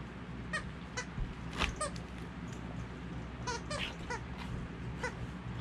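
Dog squeaky toy being chewed by a German Shepherd: short, irregular squeaks, some sliding in pitch, with a few sharp clicks between them.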